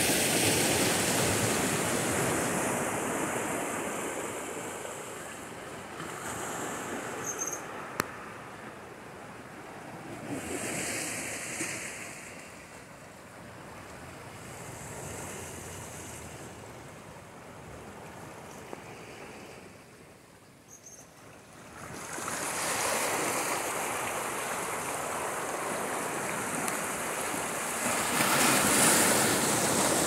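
Small sea waves washing in among shoreline rocks and breaking against them, swelling and ebbing: loud at first, softer through the middle, and louder again over the last several seconds.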